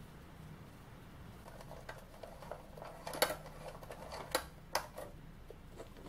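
Faint clicks and knocks of plastic toys handled by hand: a toy fire engine's ladder and a toy bird being moved, with three sharper knocks in the second half.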